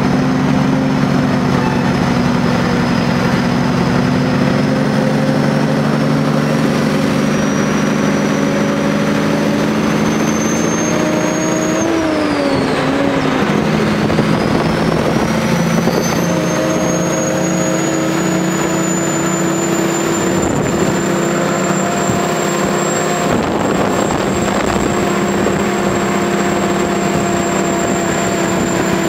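Kenworth truck's diesel engine running under way, heard from the cab, with a high turbo whine over the engine note. About twelve seconds in, the whine and the engine note drop as the throttle eases, then the whine climbs back up and holds steady.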